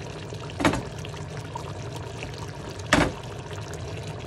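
Curry simmering in a steel pot, a steady bubbling hiss, with two sharp metallic knocks about two seconds apart, from metal tongs striking the pot.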